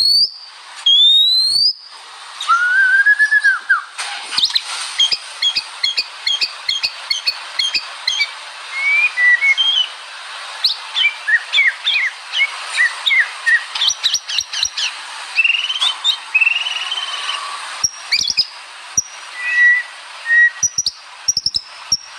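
White-rumped shama (murai batu) singing vigorously in a long, varied song. It opens with clear rising whistles and a slurred lower note, then runs into a fast stream of short, sharp notes and trills, and ends with loud, high whistled phrases.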